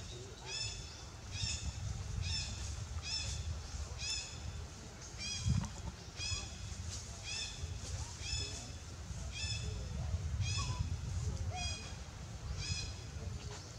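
Baby long-tailed macaque crying over and over, short high-pitched calls about once a second: an infant's distress cries calling for its mother.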